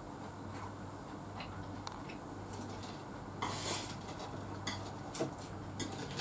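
Chopsticks clicking and scraping against a ceramic rice bowl and plate while eating, with scattered light clicks and a longer scraping burst about three and a half seconds in.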